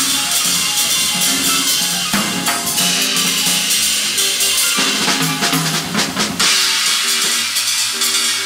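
Small jazz group playing live: drum kit with busy cymbals, snare and bass drum, over piano and upright double bass. About six seconds in the drums lighten and the bass drum drops out.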